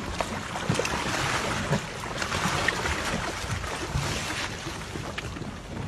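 Water splashing and churning as a beluga whale thrashes at the side of a boat, loudest through the middle, with wind on the microphone and a few low knocks.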